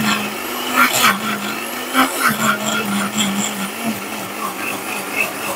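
Electric countertop blender grinding chopped onion, garlic and ginger with a little water into a thick paste: a steady, slightly wavering motor hum with a few sharp knocks, stopping about four seconds in.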